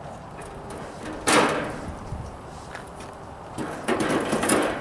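Metal grill parts scraping and clanking as they are moved about inside a stainless steel gas grill: one sharp scrape about a second in, then a longer scraping rattle near the end.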